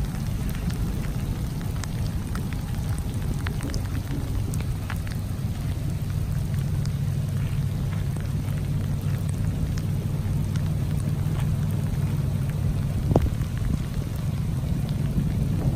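Steady rushing noise of rain and runoff floodwater flowing across a gravel road and along a ditch, with scattered small ticks of drops.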